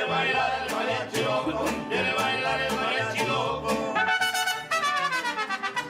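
Background music: an instrumental with a steady, repeating bass line.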